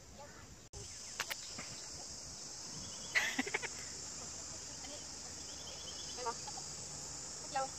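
Insects buzzing steadily in a high, even drone, with a few brief short sounds about three seconds in.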